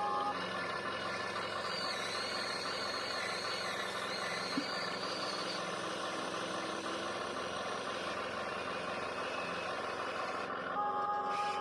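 Radio-controlled construction models running: a steady mechanical whirring with a faint wavering whine for a few seconds and a single click about halfway through.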